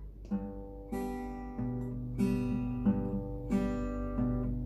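Acoustic guitar strumming chords in a steady rhythm, about one strum every two-thirds of a second, with a chord change about a second and a half in.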